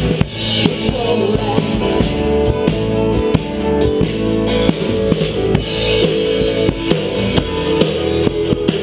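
Live band music, led by a drum kit heard up close: steady rhythmic drum and cymbal strokes over sustained notes from the other instruments.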